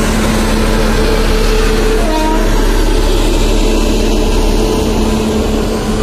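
Indian Railways WAP-7 electric locomotive and its coaches passing close by: a loud, steady rumble of wheels on rail with a steady hum through most of it, and a brief short tooting note about two seconds in.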